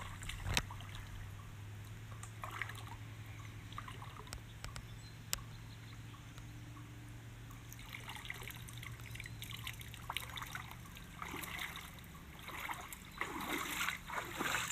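Lake water trickling and sloshing as a pond net is worked through the shallows and lifted out, with splashing from wading steps near the end. A single sharp knock comes less than a second in.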